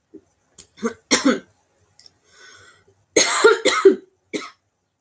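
A woman coughing hard after choking on something she swallowed. A few coughs come about a second in, then a short breath, then a louder run of coughs about three seconds in.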